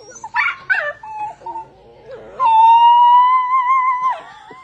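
A dog giving a few short whines, then one long, steady howl with a slight waver that drops off near the end.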